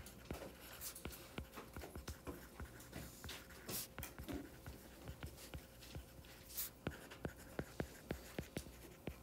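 Stylus tip tapping and sliding on a tablet's glass screen during handwriting: a faint run of quick, irregular clicks with a few brief scratchy strokes.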